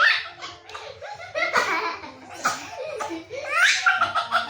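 A young child laughing hard in fits of rapid, high-pitched laugh bursts, with short breaks between the fits.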